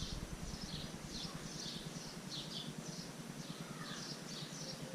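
Bird chirping over and over: short, high, downward-sliding chirps, two or three a second, with a fainter lower call about four seconds in.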